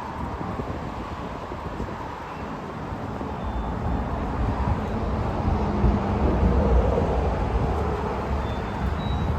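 Car on the move: engine and road noise, gradually getting louder.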